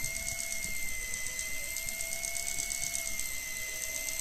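Electric deep-drop fishing reel winding in line against the weight of a hooked fish: a steady, slightly wavering motor whine with fast mechanical ticking from the gears.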